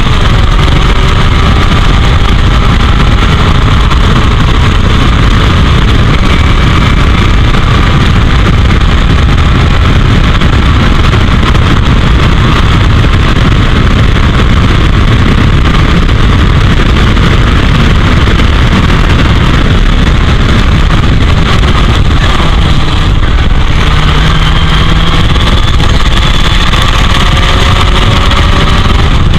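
Heavy wind buffeting on the camera at racing speed, loud and unbroken, with the Royale S2 sports racer's engine faintly heard underneath, its pitch repeatedly rising and dropping through the gears.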